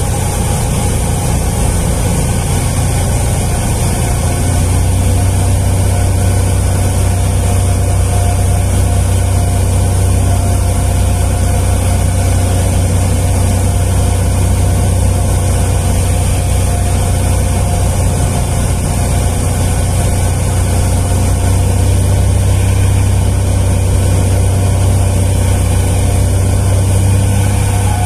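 Light single-engine propeller plane's engine and propeller droning steadily, heard from inside the cockpit; the low engine note settles and grows stronger about four seconds in.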